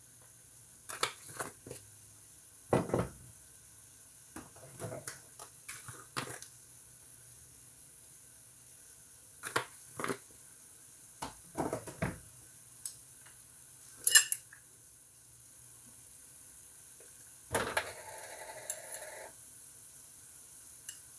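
Irregular clicks, taps and clinks of spice jars and their shaker caps being opened, shaken and knocked against the pan, the sharpest click about two thirds of the way through.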